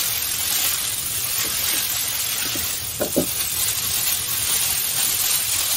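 Rice vermicelli sizzling steadily in a hot oiled wok over medium heat as they are stirred and tossed with chopsticks.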